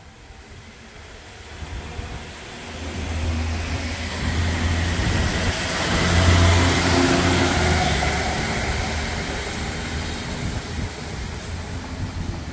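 SA103-series diesel multiple unit passing close by: its diesel engine drone and the rush of its wheels on the rails build to a peak about six seconds in, then fade as it pulls away.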